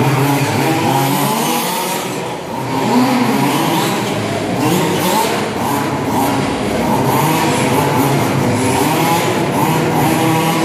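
Several radio-controlled off-road buggies racing, their motors revving up and down in overlapping, constantly shifting pitches.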